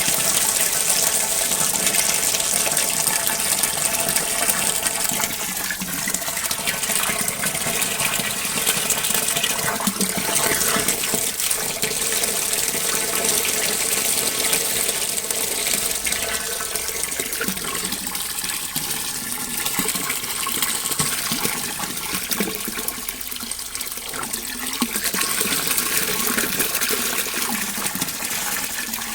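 Rippling, flowing water: a continuous, steady rush of running water that eases slightly for a moment about two-thirds of the way through.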